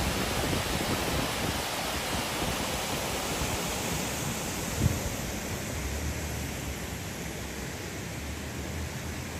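Steady rush of a flowing river, easing off somewhat in the second half, with one soft thump about five seconds in.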